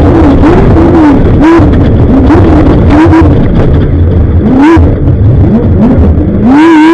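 Loud Class 1 desert race car's engine revving hard, its pitch rising and falling over and over as the throttle is worked, easing off briefly about five seconds in before climbing again.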